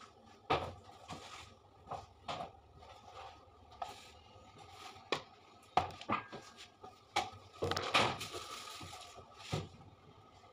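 Scattered light taps, knocks and rustles of hands handling cake decorations and the metal turntable, with a longer rubbing rustle about eight seconds in, over a faint steady hum.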